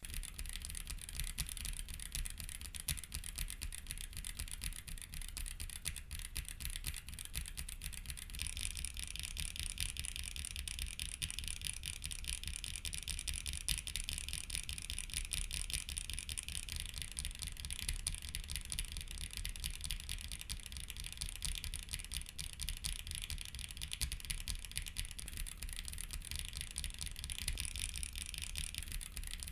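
Continuous typing on a mechanical keyboard with Haimu Haku linear switches: a steady rapid clatter of keystrokes. The switches have a sharp spring ping on every press and some scratchiness, which the reviewer puts down to a thin factory lube job. The clatter turns brighter and sharper about eight seconds in.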